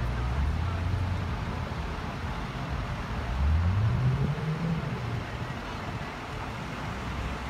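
Road traffic passing by: a steady low engine hum, then one vehicle's engine rising in pitch as it speeds up about three and a half seconds in, the loudest moment.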